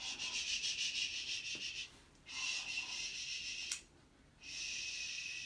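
A dog breathing hard and raspily in long strokes, roughly one every two seconds, while it is restrained in a towel for a nail trim. A single sharp click of the nail clipper comes about two-thirds of the way in.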